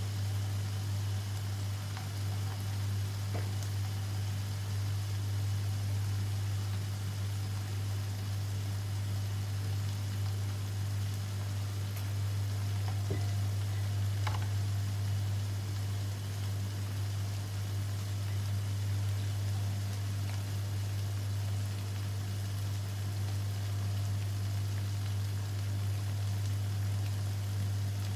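Thick sambal simmering in a wok over a gas flame, with a few small pops, under a steady low hum and faint hiss.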